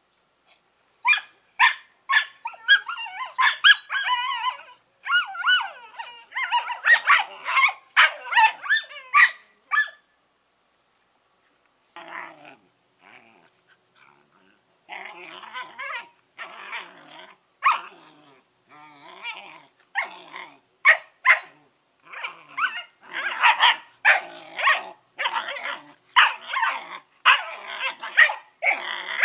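Two smooth collie puppies play-fighting, giving high-pitched barks, yips and growls in quick runs. There is a lull about ten seconds in, then a steady string of short yaps and growls resumes.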